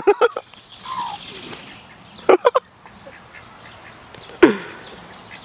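Duck quacking in short loud calls: a quick run of three about two seconds in and one more near the end.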